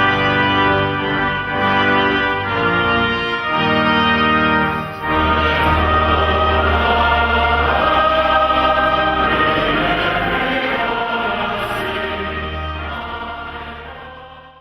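Choir singing held chords over a deep sustained bass, fading out over the last few seconds.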